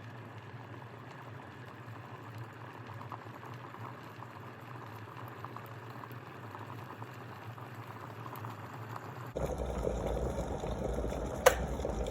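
Bella electric glass kettle bringing water to the boil: steady bubbling with a low hum and faint crackle. About nine seconds in it suddenly gets louder and deeper, and a single sharp click comes near the end.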